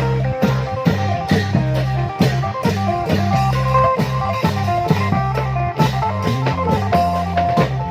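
Thai klong yao long-drum band playing lively procession music, with regular drum strokes under a steady bass and a melody.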